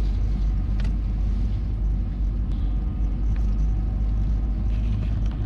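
Steady low rumble of engine and tyre noise from a car driving along a mountain road, heard from inside the moving car.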